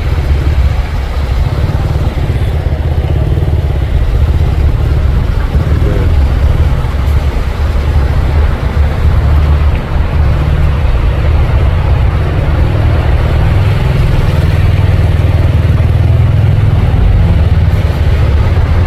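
Vehicle on the move, a steady loud low rumble of engine and road noise heard from inside the vehicle.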